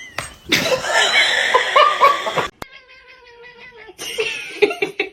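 Domestic cat yowling and meowing in several drawn-out, wavering calls, one of them a long steady call held for over a second.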